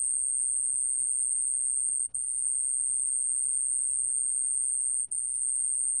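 좀방울벌레 (a small bell cricket) singing at 29 °C: a continuous, steady, high-pitched trill. It breaks off very briefly twice, about two and five seconds in.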